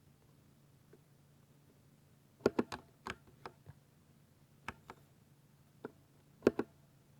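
Keystrokes on a 60% computer keyboard: about a dozen sharp key clicks in small, irregular groups, starting about two and a half seconds in, over a faint steady low hum.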